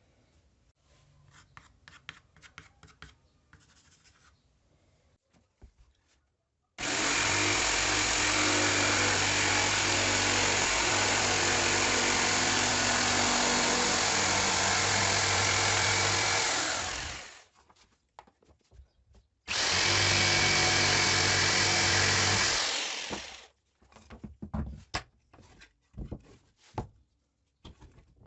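An electric power tool runs at a steady speed for about ten seconds, then is switched off and winds down. It runs again for about four seconds and winds down once more. Light clicks and knocks of handling come before and between the runs.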